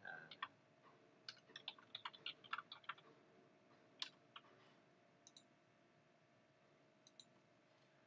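Faint computer keyboard typing: a quick run of key clicks in the first few seconds, then a few scattered single and paired clicks.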